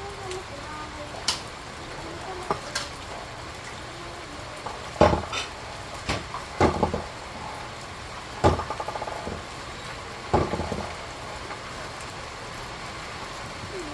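Steady rain with a string of sharp clattering knocks, several followed by a brief rattle, the loudest coming about five, eight and ten seconds in.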